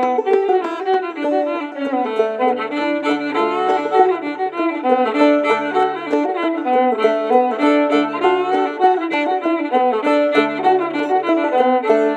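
Fiddle and clawhammer banjo playing a lively old-time tune, the fiddle carrying the melody in a quick, continuous run of bowed notes.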